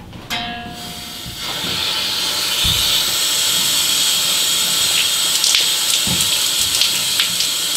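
Water hissing through a gate valve as it is opened to pressurize a newly fitted cold-water washing-machine supply hose. The rush builds over the first second or so and then holds steady, with a short thin whistle as the valve begins to open. It is a leak test, and the new connection holds.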